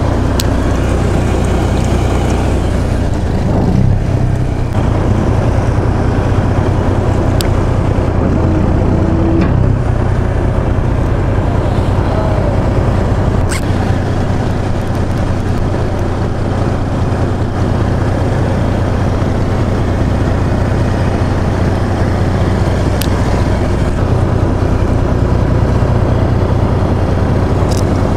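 Fishing boat's engine running with a steady low hum, with a few sharp clicks scattered through.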